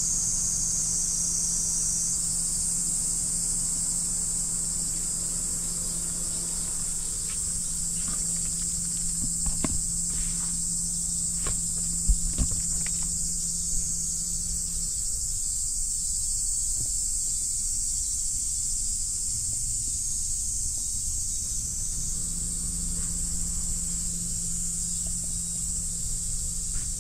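Steady, high-pitched chorus of insects outside, with a low steady hum underneath that drops out for several seconds past the middle. A few light clicks and knocks come in the first half.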